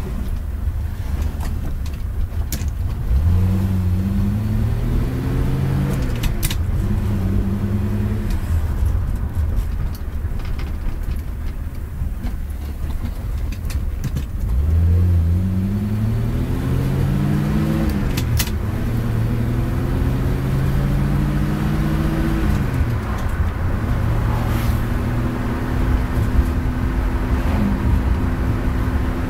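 Ford Maverick six-cylinder engine pulling away and accelerating through the gears. The pitch climbs, then drops at each shift, twice over, then settles into a steady cruise. A few sharp clicks come from the column-mounted gear lever.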